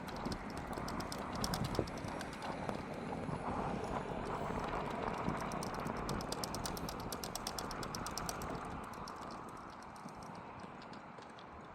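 A vehicle passing on the road, heard mostly as tyre noise on asphalt, swelling about halfway through and fading away, over a fast, light ticking.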